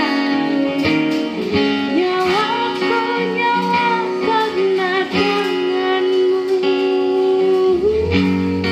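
Acoustic guitar music, plucked and strummed under a long held, wavering melody line; a low bass part comes in near the end.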